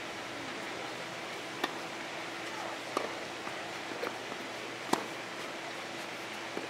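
Tennis balls struck on nearby courts: about four sharp pops, the loudest near the end, over a steady background hiss and faint hum.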